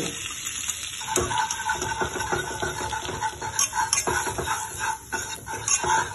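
Flour and hot butter sizzling in a pan while a wire whisk stirs them into a roux, with many light ticks from the whisk.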